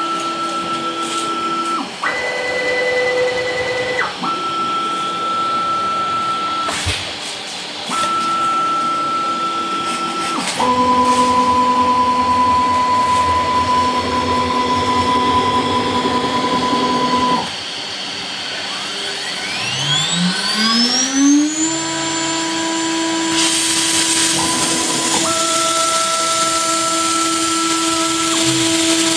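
A home-built CNC router moving between positions: its axis drive motors whine at steady pitches that switch every couple of seconds as each move starts and stops. About 19 seconds in, the spindle spins up with a rising whine that levels off into a steady tone, and from about 23 seconds a high hiss joins while the axis motors whine on.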